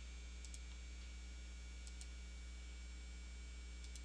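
Steady low electrical hum with three pairs of faint computer mouse clicks, about half a second, two seconds and four seconds in, as checkboxes are ticked.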